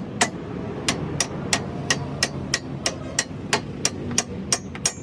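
Hammer striking metal in a steady rhythm, about three blows a second, each blow ringing briefly.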